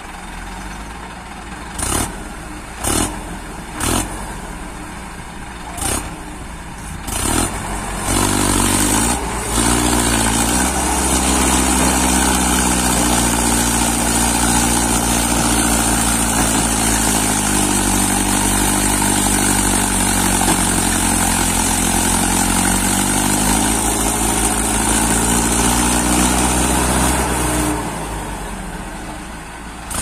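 Mahindra Arjun 555 DI tractor's diesel engine, together with a JCB 3DX backhoe, revving hard under load as the tractor and its loaded trolley are pushed out of deep mud. The engine note wavers and dips in the middle, then falls away near the end. Before the hard revving, over a lower engine note, come several sharp knocks.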